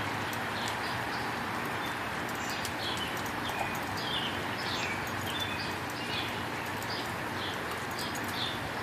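Small birds chirping again and again over a steady background hiss, with a few faint clicks.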